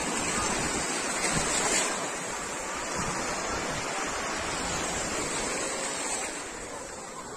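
Sea surf washing onto a sandy beach, a steady rushing noise with some wind rumble on the microphone, easing off slightly near the end.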